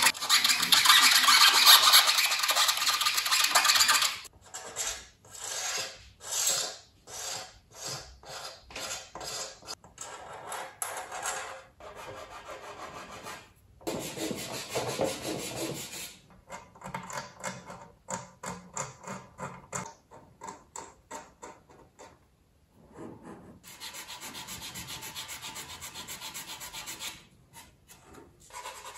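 Sanding sticks and a sanding sponge rubbed over the filled seam of a plastic model ship hull, smoothing it down. A continuous scrubbing at first, then short back-and-forth strokes, two or three a second, broken by a few brief pauses, and a steadier scrub again near the end.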